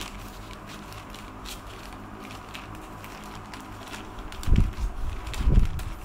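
Scissors cutting through a plastic mailer bag: faint snips and rustles of the plastic, then two dull thumps about a second apart near the end as the bag is handled against the floor.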